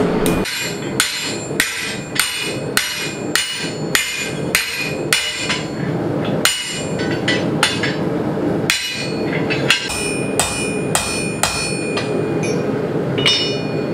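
Hand hammer striking steel on an anvil in a steady rhythm, a little under two blows a second, each blow ringing. A steady rush from a lit gas forge runs underneath.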